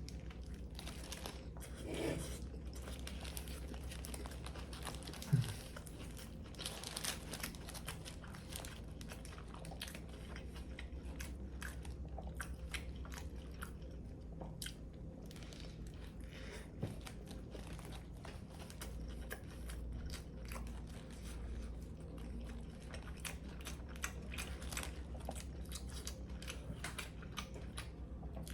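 A person biting and chewing a crispy toasted Subway sandwich, with a steady run of crunching and crackling bites. A low steady hum runs underneath.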